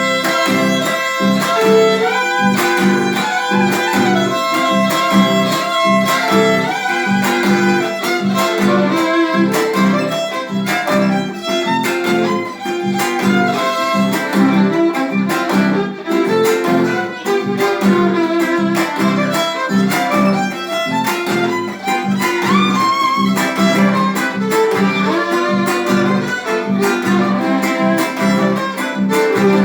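Instrumental gato, an Argentine folk dance tune: a bowed violin melody over steady acoustic guitar strumming.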